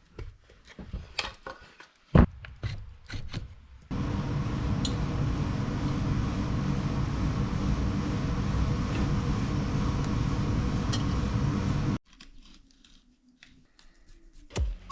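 Workshop handling sounds, light metallic clicks and knocks with one sharp knock, then a steady loud machine noise with a fast, even pulse that starts and stops abruptly after about eight seconds.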